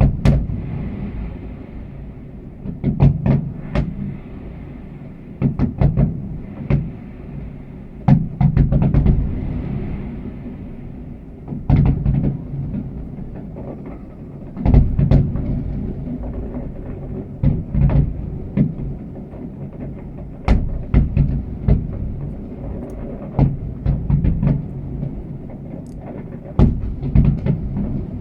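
Fireworks exploding: clusters of sharp bangs at irregular intervals, each followed by a low rumble.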